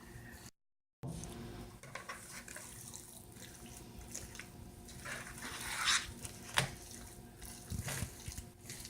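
Spoon stirring blueberries into thick cake batter in a mixing bowl: irregular wet scraping strokes, with a sharp clack a little past the middle. The sound drops out completely for half a second near the start.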